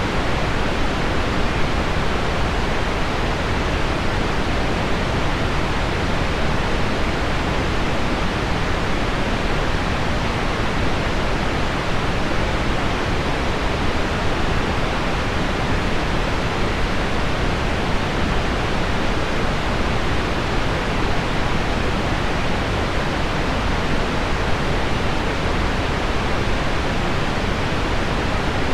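Heavy rain on window glass blended with deep pink noise, a steady, even hiss weighted toward the low end with no change throughout.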